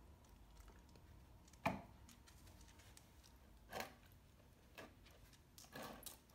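A few short, sharp clicks and taps against quiet room tone, the loudest about two seconds in, another near four seconds and a small cluster near the end: a dog pressing a pet feeder's button pad with its nose.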